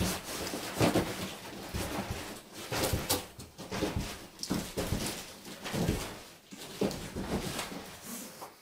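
Large cardboard refrigerator box being shuffled across a wooden floor, its corners scraping and knocking in a run of irregular thumps, mixed with footsteps; the noise stops suddenly near the end.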